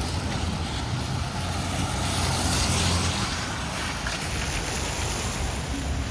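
Vehicle passing on a rain-wet road: a steady low rumble with tyre hiss that swells about two to three seconds in and then eases.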